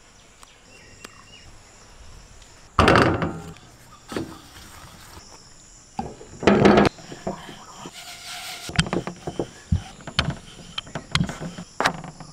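Dough being shaped and rolled out on a wooden board set on a steel plate: two loud thumps about three and six and a half seconds in, then a run of lighter knocks and clicks.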